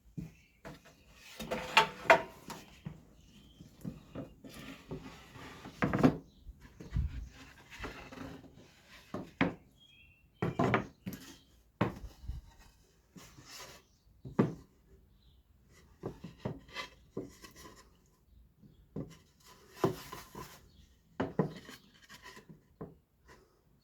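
Small wooden boards being handled on a workbench: irregular knocks and clatters as pieces are picked up and set down, with some scraping of wood on wood between them.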